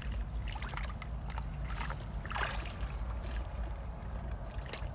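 Footsteps and a pole moving through shallow muddy water and wet grass, with scattered rustles and a sharper splash about two and a half seconds in, over a steady low rumble.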